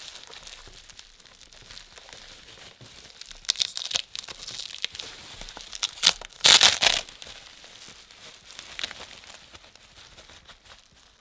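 Packaging of a microphone stand being torn open and crinkled by hand: scratchy crackling that comes and goes, with one loud tearing rip about six and a half seconds in.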